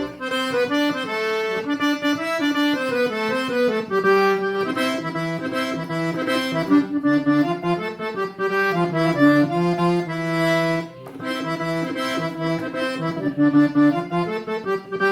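Accordion playing an instrumental break: a melody over a repeating bass line, with no singing.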